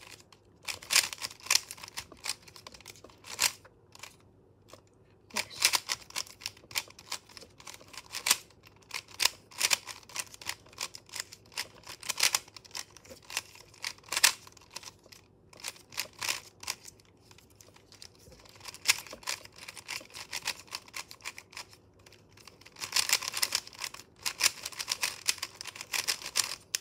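Plastic 3x3 speed cube being turned fast by hand during a solve: quick runs of rattling clicks from the layers, broken by short pauses.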